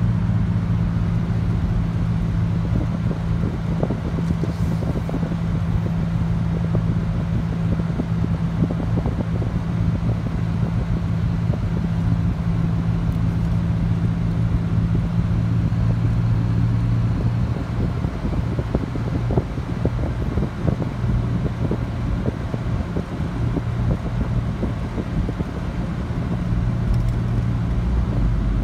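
Road noise inside a moving car's cabin: a steady low hum over an even tyre rumble.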